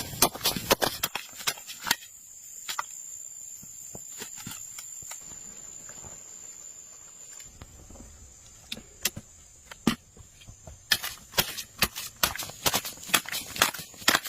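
Rapid sharp clicks and knocks, then a quieter stretch of several seconds with a faint steady high tone, and the clicks and knocks start again in quick succession near the end.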